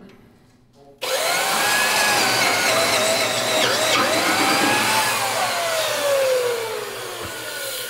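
Hand-held electric drill driving a boring cutter into the end of a steel smoke tube in a steam locomotive boiler's tube plate, thinning the tube wall so the tube can be pressed out. It starts suddenly about a second in, and its whine rises and then falls steadily toward the end as the cutter digs in and binds.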